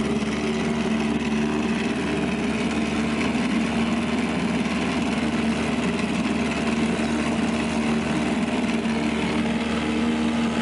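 1967 Evinrude 3 HP two-stroke outboard motor running steadily in a test barrel of water after a carburetor repair, its even engine note holding without change.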